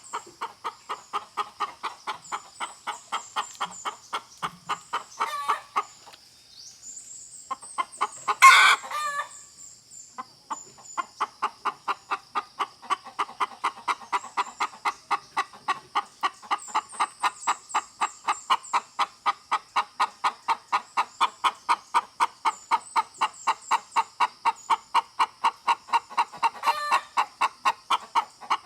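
Hen clucking in a steady rapid rhythm, about three clucks a second. There is a short pause about six seconds in, then one much louder squawk just after eight seconds before the clucking resumes.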